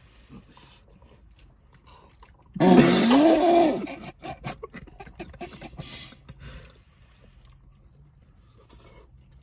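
Eating sounds: chewing and plastic forks scraping foil takeaway trays, in scattered small clicks and scrapes. A little under three seconds in there is a loud wordless vocal exclamation lasting about a second.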